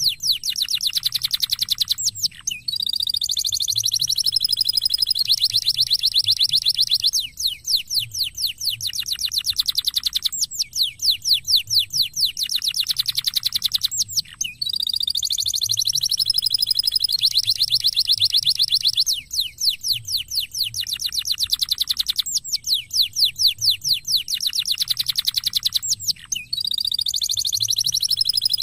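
Canary singing continuously: fast trills of short falling notes alternate with long, even warbling rolls, the same sequence coming round about every twelve seconds. It is a lure song meant to set silent canaries singing.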